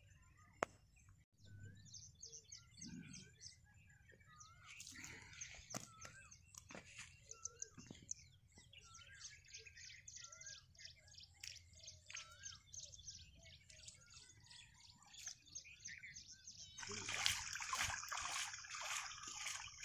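Small birds chirping and twittering in many short, wavering calls. Near the end, a louder wet squelching and splashing of mud being dug out by hand.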